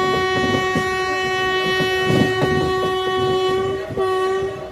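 Train's locomotive horn sounding one long steady blast, breaking off briefly near the end for a short second blast. Underneath is the rattle of the moving train's wheels on the track.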